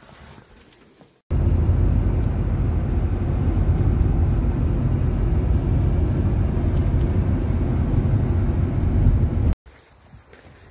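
Steady low rumble of road noise inside a moving car. It cuts in abruptly about a second in and cuts off abruptly about a second before the end.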